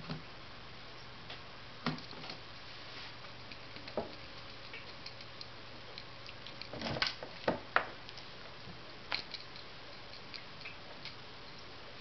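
Cats playing with a wooden wand toy on a carpeted cat tree: scattered light taps, knocks and scuffs, with a quick cluster of them about seven to eight seconds in.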